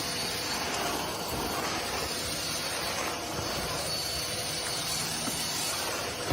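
Steady hissing noise, even in level throughout.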